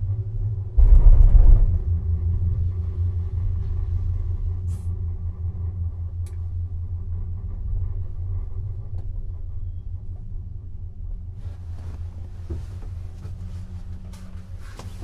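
Gondola lift cabin rumbling along the haul rope, heard from inside the cabin. About a second in, a louder rumble lasting about a second as the cabin rolls over a line tower's sheaves, then the steady rumble slowly fades.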